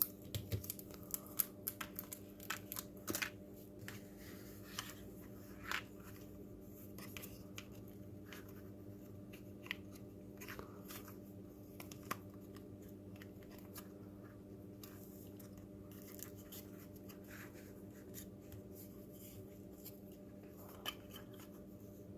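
Faint clicks and taps of small plastic robot-kit parts and tiny M2 screws being handled, busiest in the first few seconds and then scattered, over a steady low hum.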